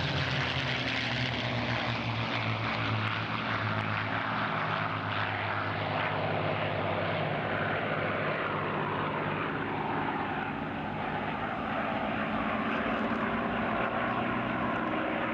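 Propeller-driven P-51 Mustang fighters flying past, their Merlin V-12 engines giving a steady deep drone whose pitch sinks as they pass by.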